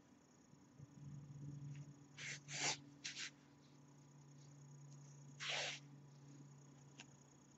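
Faint handling sounds of sewing crochet: a few short, soft swishes in quick succession about two seconds in and another a little past the middle, as black yarn and a tapestry needle are drawn through the stitches, over a faint steady low hum.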